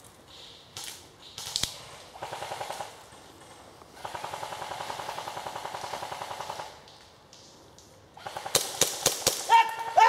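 Airsoft rifles firing on full auto: a short rapid burst about two seconds in, then a longer burst of nearly three seconds. Several loud, sharp snaps follow near the end.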